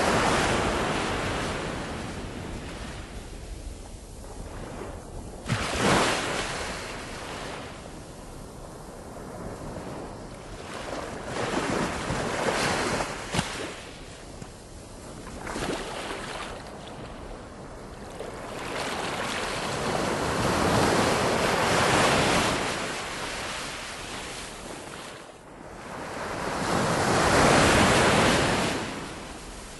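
Surf and wind: a rushing noise that swells and fades in slow surges like waves washing in. There is a sharp knock a few seconds in and another about halfway.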